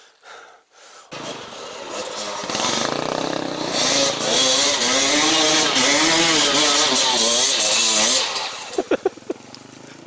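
Off-road motorcycle engine revving hard, its pitch rising and falling repeatedly for several seconds, then dropping back near the end. A few sharp knocks follow.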